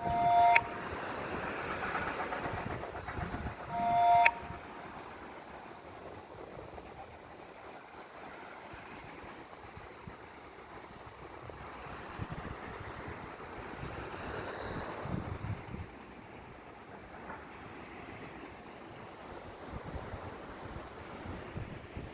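Sea waves washing ashore, a steady surf noise that swells once around the middle, with wind on the microphone. Two short two-tone horn blasts sound near the start, about four seconds apart, louder than the surf.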